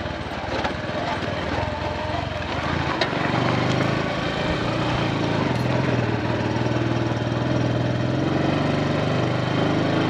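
Motorcycle engine running under way on a dirt track, heard from the rider's seat. The engine note climbs a little about three seconds in, then holds steady.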